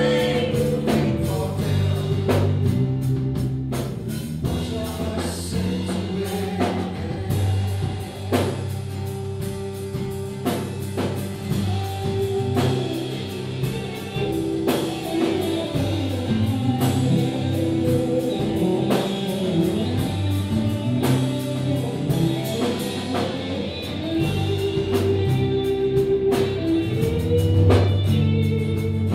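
A live band playing a song: electric and acoustic guitars, bass and drums, with singing over them.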